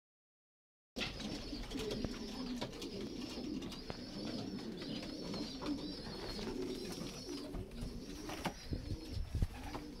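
Racing pigeons cooing in their loft, many overlapping coos starting about a second in, with a few soft knocks near the end.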